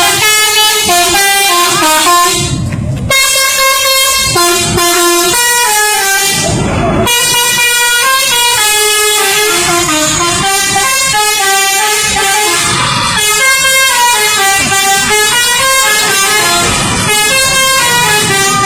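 A bus's telolet musical air horn playing a tune, a run of short horn notes stepping from pitch to pitch, broken by a couple of short pauses.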